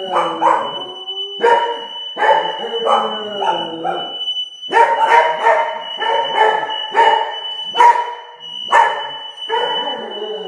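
Corgi barking over and over, some barks drawn out into yowls, while a smoke detector sounds one steady, piercing high tone.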